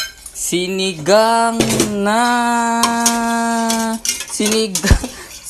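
A voice sings one long held note for about three seconds. Steel pot and ladle clink a few times, the sharpest knock near the end.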